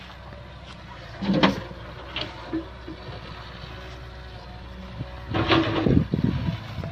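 Diesel engine of a Solar 130W wheeled excavator running steadily as it loads soil into a dump truck. There is a short, loud thud about a second and a half in, and a louder stretch of rumbling and clatter from about five and a half seconds on.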